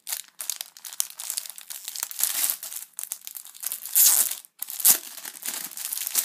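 Clear plastic bag crinkling and crackling in quick spurts as it is handled and pulled off a pouch, loudest about four seconds in.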